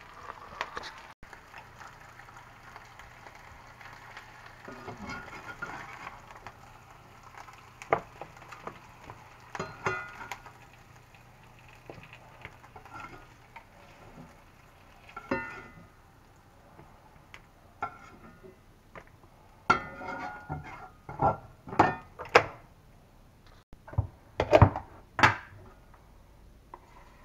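Metal spatula clinking and scraping in a cast-iron skillet, with scattered knocks of kitchenware. A run of loud clanks comes in the last few seconds.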